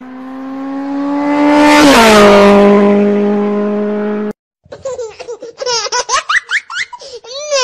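A car-like engine drone that swells, drops in pitch about two seconds in as if a car speeds past, and cuts off abruptly after about four seconds. Then a run of quick, high-pitched laughter.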